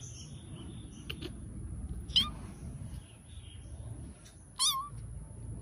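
Young kitten mewing twice, two short, high-pitched, wavering mews about two and a half seconds apart.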